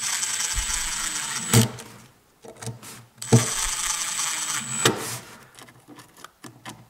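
Metal tape measure's spring-wound blade mechanism whirring twice, each run about a second and a half long and ending in a sharp click. A few lighter clicks fall between the two runs.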